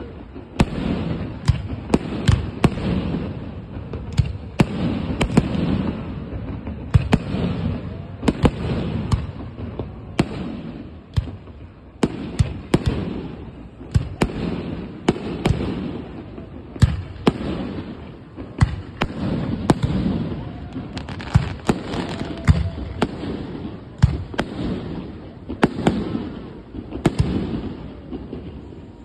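Aerial fireworks display: a fast, irregular string of sharp bangs from shells bursting overhead, one or two a second, with a steady low rumble between them.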